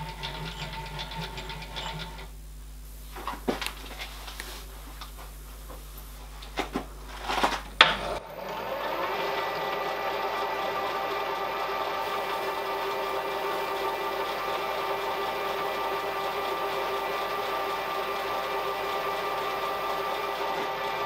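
A few sharp knocks and clicks of tools and the workpiece being handled, then, about eight seconds in, a milling machine's spindle starts, rising briefly in pitch, and runs steadily with a whine while drilling a hole in a steel blank.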